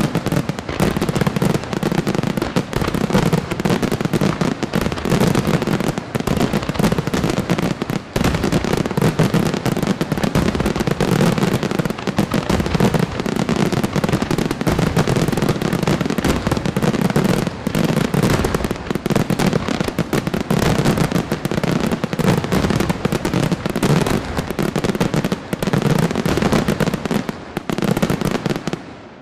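Aerial fireworks barrage: shells bursting one on top of another in a continuous rapid stream of bangs and crackle, without a pause. The sound drops away right at the end.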